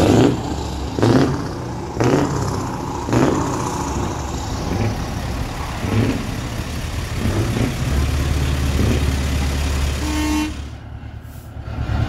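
Scania truck horns sounding in short blasts, about one a second, then fewer and fainter, over the steady rumble of heavy diesel truck engines.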